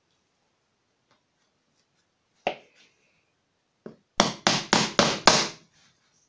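A hammer driving a small headed nail through a thin wooden strip into a plywood board: a single knock, a light tap, then five quick strikes, about four a second.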